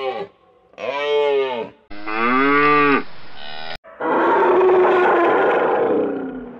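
Cattle mooing, two calls, the second one longer. Just before four seconds in there is a sharp click, and then a rougher, noisier elephant call lasts a couple of seconds.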